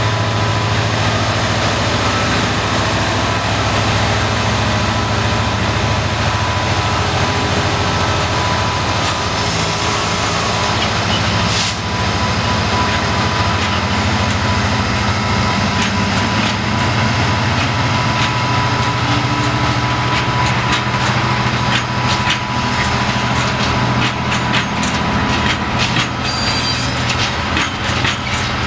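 Class 66 diesel-electric locomotive's two-stroke V12 engine running under load as it pulls away with a heavy freight train of about 3,700 tonnes: a steady low drone, with a thin steady whine through the middle. Toward the end the loaded wagons clatter over the rail joints.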